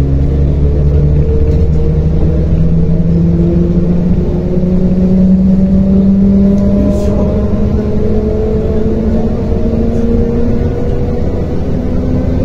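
MAZ-105.065 city bus heard from inside the passenger cabin while driving at speed: a steady engine and drivetrain drone over tyre noise, its tones slowly rising in pitch as the bus gathers speed.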